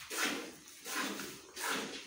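Cow snuffling and breathing in a few short, noisy puffs with its muzzle right at the microphone as it eats from its feed plate.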